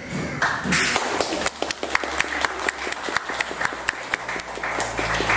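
Scattered applause from a small audience: quick, sharp, irregular claps that start about a second in.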